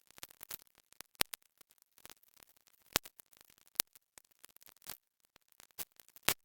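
Scattered sharp ticks and clicks at irregular intervals, a few of them louder, over a faint background.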